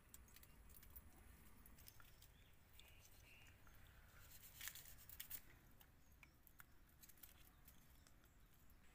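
Near silence: faint background hum with scattered soft clicks, a few slightly louder ones about halfway through.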